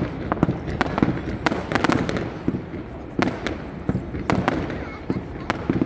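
Aerial fireworks going off in quick, irregular succession, a sharp bang several times a second over a constant low rumble.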